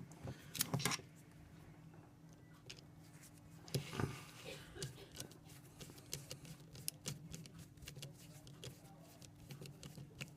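Screwdriver driving a small screw into a plastic battery housing: a run of small clicks and ticks, denser in the second half, with a few louder knocks around the first second and about four seconds in. A faint steady hum lies underneath.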